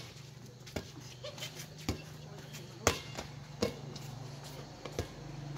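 Players' hands slapping a light inflatable air-volleyball back and forth in a rally: about five sharp smacks at uneven spacing, roughly a second apart, the loudest near the middle.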